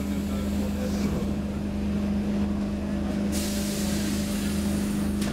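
Stockholm C6 metro car standing at the platform, its onboard equipment giving a steady hum. A steady hiss of air starts about three seconds in.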